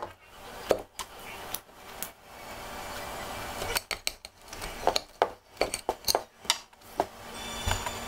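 Metal knife and fork clinking and scraping against a ceramic plate while food is cut: a string of sharp, separate clicks, thickest in the middle.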